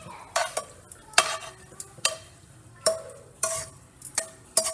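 A spatula scraping and knocking browned ground beef out of a frying pan to drain off the grease: a series of sharp, uneven scrapes and taps, several of them leaving a short ringing tone from the pan.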